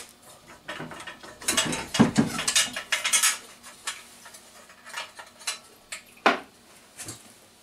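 Metal clicks and rattles of an old railroad kerosene lantern, wire bail handle and metal frame, being handled and taken down. There is a busy clatter about two seconds in, then scattered clicks and one sharp click near the end.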